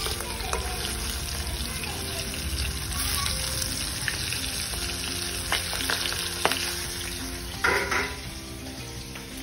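Marinated katla fish pieces frying in hot oil in a wok: a steady sizzle, stirred and turned with a spatula. There are a few sharp clicks partway through and a brief louder scrape near the end.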